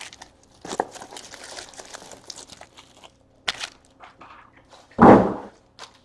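Hands handling trading-card packaging: crinkling plastic wrap and cardboard box with scattered light clicks and rustles, a sharper tap about three and a half seconds in, and a louder short burst of noise about five seconds in.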